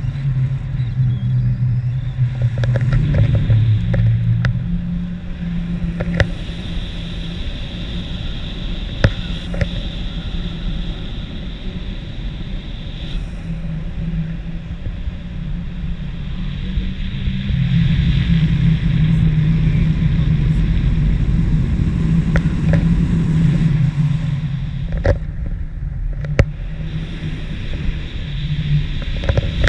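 A vehicle engine runs continuously, its low pitch shifting up and down (rising about two-thirds of the way through), with a few sharp knocks and rattles.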